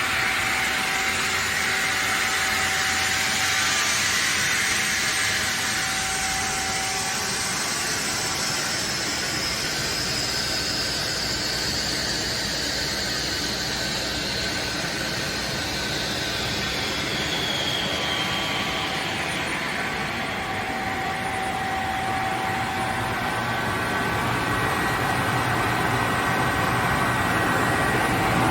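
KAESER SK25 inverter-driven rotary screw air compressor running after start-up, building pressure in its air receiver. A steady machine noise with a high whine that slowly falls in pitch through the middle, and a deeper hum that grows towards the end.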